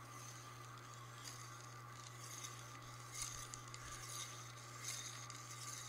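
Whee-lo-style magnetic rail twirler toy: the wheel's axle rolling along the wire rail, a faint clinking rasp that comes in irregular surges, mostly in the second half, over a steady low electrical hum.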